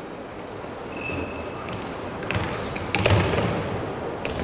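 A basketball bounced a few times on an indoor court floor, with sneakers squeaking in short, high chirps as players cut and stop during a one-on-one.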